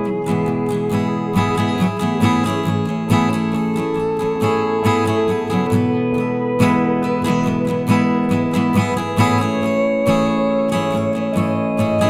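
Background music: strummed acoustic guitar playing a steady, even rhythm, with no singing.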